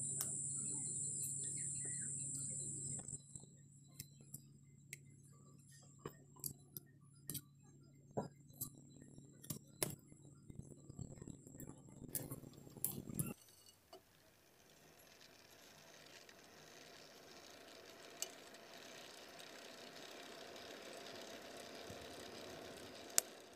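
A steady high whine with a low hum for about three seconds. Then light, scattered metallic clinks and taps of iron tools and bars being handled for about ten seconds. A soft steady hiss follows.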